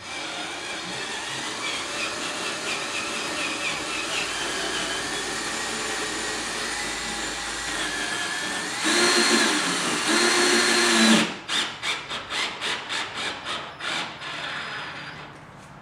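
Cordless drill with a Phillips bit driving a screw through a washer into an aluminium diamond plate rocker panel. The motor runs steadily for about nine seconds, then louder and higher for about two seconds, then in a quick string of short bursts, about three a second, near the end.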